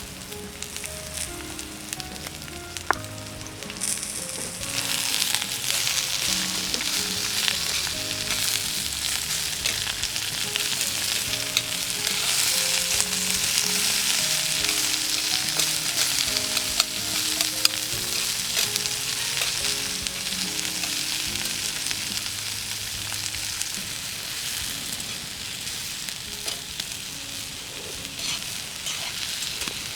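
Food sizzling as it fries in a pan. The sizzle swells about four seconds in, is loudest around the middle and eases off a little toward the end.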